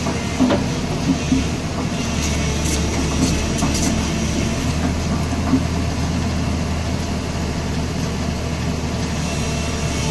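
Tata Hitachi excavator's diesel engine running steadily, with a few light clicks about two to four seconds in.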